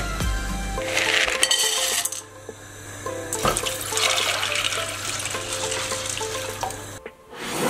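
Red beans tipped into an empty stainless-steel pot, clattering on the metal for about a second. Then water is poured from a glass jug onto the beans in the pot for about four seconds and stops abruptly.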